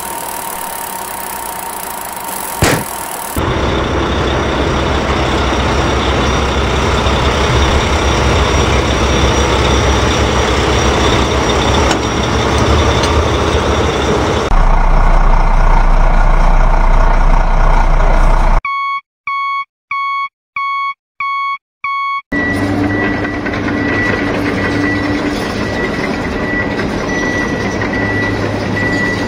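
Heavy-truck engine sound effects: an engine running, turning to a deeper rumble about two-thirds of the way through. Then come five electronic reversing beeps, evenly spaced, followed by the engine running again with a steady high whine.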